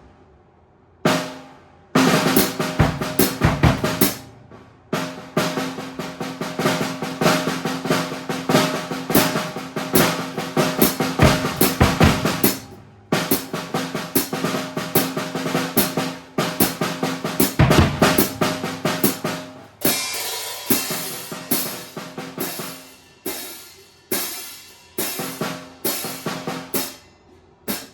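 Solo drum kit improvisation: snare, bass drum and rimshots played in a busy groove with fills, broken by short pauses, with more cymbal wash in the later part.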